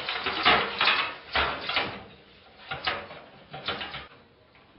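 Metal clatter, knocks and scraping as a computer power supply unit is handled and fitted into a steel desktop case, in a run of bursts over the first four seconds.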